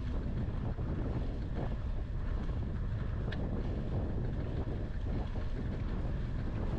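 Wind rushing over the microphone of a camera on a moving bicycle, a steady low rumble mixed with the hum of the tyres on the road.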